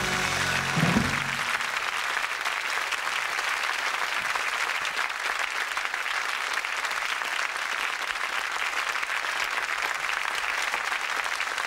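The band's closing chord ends about a second in, followed by an audience applauding steadily.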